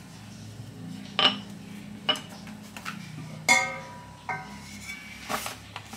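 Kitchen handling knocks: a wooden rolling pin laid down on a wooden cutting board, then a thin metal baking pan handled and set down, clanking with a short metallic ring about three and a half seconds in, followed by a couple of lighter clinks.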